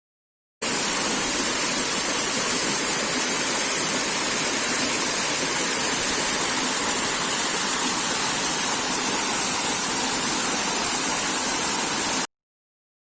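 Waterfall: a steady, even rush of falling water that starts abruptly just after the beginning and cuts off suddenly about a second before the end.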